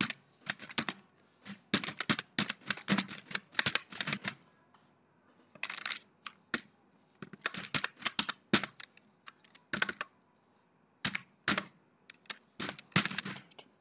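Computer keyboard typing in short bursts of keystrokes, with pauses of about a second between bursts.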